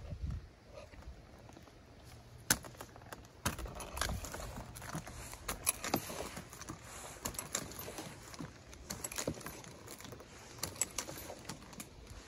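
Metal hardware on a lineman's climbing harness jangling and clicking, with irregular knocks, as a man climbs a wooden utility pole on gaffs and a pole strap. One sharp knock about two and a half seconds in is the loudest.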